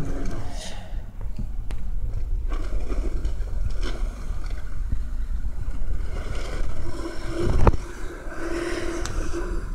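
2014 Volkswagen Touareg TDI's V6 turbodiesel running under load as the snowbound SUV pushes against a bank of plowed snow, a steady low rumble. A sharp thud comes about three-quarters of the way through.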